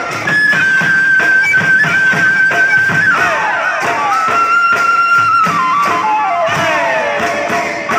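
Traditional folk music accompanying a Mising Gumrag dance: a high melody of long held notes that steps downward late on, over a steady drum beat.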